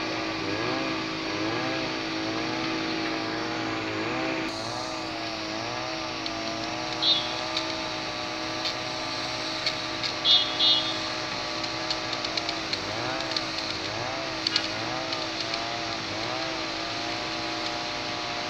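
Emergency-vehicle siren wailing up and down in pitch about once a second, over street traffic, with a few short sharp clicks in the middle.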